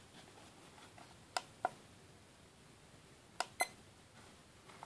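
FanJu FJ3523 digital alarm clock giving four short key beeps as its buttons are pressed, in two quick pairs about two seconds apart.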